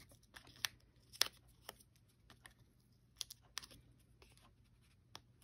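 Faint, scattered clicks and rustles of cardstock being handled while adhesive dots are peeled and pressed onto its back.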